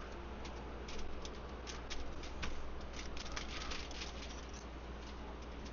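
Paper towel crinkling and rustling in quick, irregular dabs as it is pressed against grouper to pat the fish dry.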